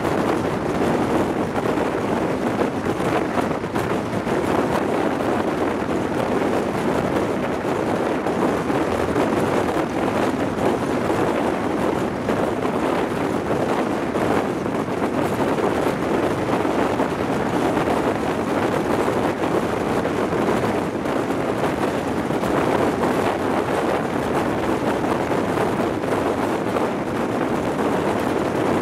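Steady rush of wind buffeting a microphone held out of the window of a High Speed Train running at speed, mixed with the train's running noise.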